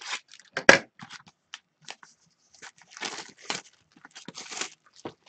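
Clear plastic shrink wrap being torn off a box of hockey cards and crumpled: one sharp rip less than a second in, then irregular bursts of crinkling.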